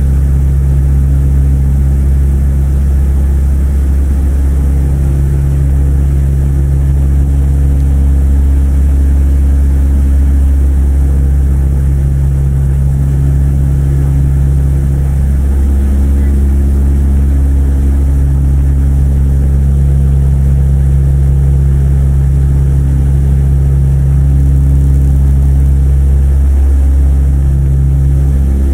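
Cabin drone of a Tecnam P2006T in cruise flight: its twin Rotax 912 four-cylinder engines and propellers running steadily and loudly, heard from inside the cabin. A hum in the drone drops out briefly every several seconds and then returns.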